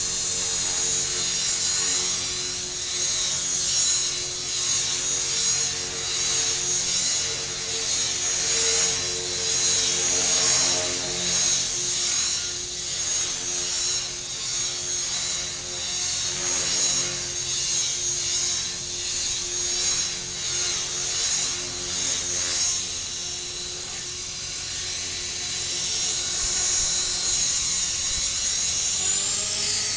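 Electric Tarot 450 Pro RC helicopter in hover: the steady high whine of its motor and gearing with the hum of the spinning rotor, swelling and easing a little as it holds position. Near the end the pitch begins to fall.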